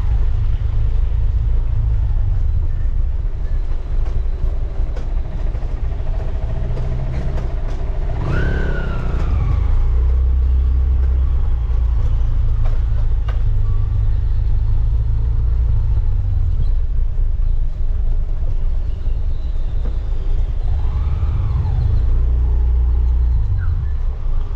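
Motorcycle riding through town traffic: a heavy, steady low rumble of engine and road noise. Brief rising-and-falling revs come about eight seconds in and again near twenty-one seconds.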